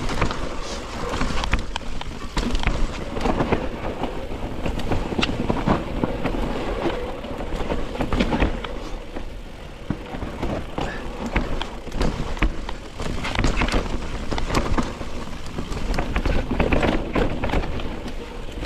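Mountain bike ridden down a rough dirt trail: tyres rumbling over dirt and roots, with constant rapid knocks and rattles from the bike as it is shaken over the bumps.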